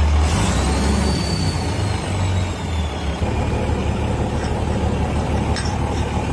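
Old bulldozer's diesel engine running steadily, with a faint whistle that falls in pitch over about two seconds near the start.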